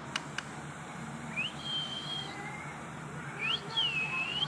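Two high, clear whistles. About a second and a half in, one rises and then holds steady for nearly a second. Near the end, a second one rises, dips and climbs again.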